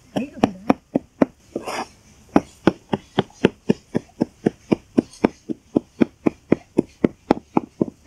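Large kitchen knife rapidly mincing garlic on a wooden chopping board: sharp, even knocks at about four a second, with a short break about one and a half seconds in.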